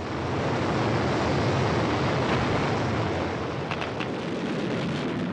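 Steady rocket-thruster roar with a deep rumble, the animation's sound of the Curiosity descent stage firing its engines as it lowers the rover on the sky crane.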